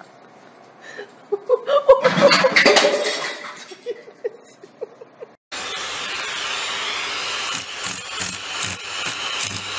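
A short, loud, noisy commotion with some pitched, voice-like sound, then background music that starts abruptly about five and a half seconds in.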